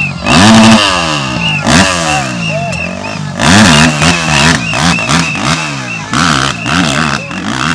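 Dirt bike engine revved in repeated sharp bursts, the pitch jumping up and dropping back each time, with a quick wavering run of revs in the middle. The rear wheel is spinning in soft dirt.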